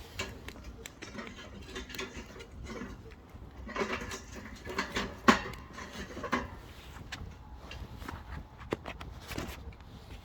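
Oak firewood crackling as it burns in a wood stove: irregular small snaps, with a cluster of louder pops in the middle and one sharp pop about five seconds in. The crackle is the sound of moisture escaping from the wood.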